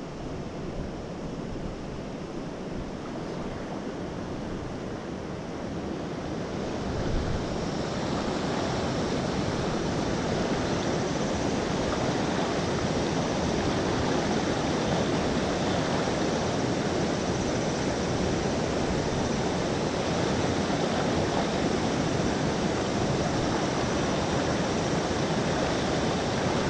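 Fast river current rushing over rocks, a steady wash of water that grows louder about seven seconds in and then holds.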